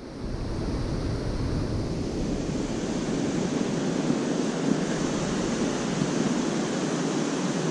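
Steady rushing noise of wind on the microphone and water, with no engine tone or distinct knocks.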